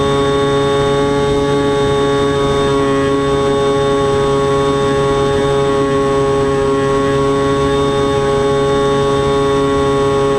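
Electric motor and propeller of an FPV aircraft, heard through its onboard camera: a steady whining drone that holds one pitch.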